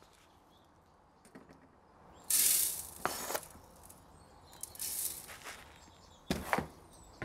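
Coarse sand aggregate poured from a scoop into the top of a stack of metal test sieves: a hiss of grains landing on the mesh about two seconds in, a weaker second pour a couple of seconds later, and a short knock near the end.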